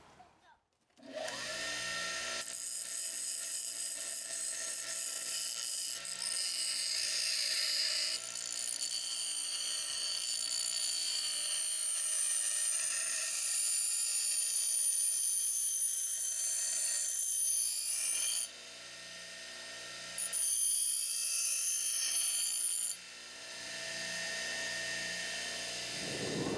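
Bench grinder running, its abrasive wheel grinding a flattened steel rebar blank down to shape: a steady motor hum under a loud high hiss of steel on the stone. It starts about a second in, and the hiss drops away twice, about two-thirds through and again near the end, while the wheel keeps spinning.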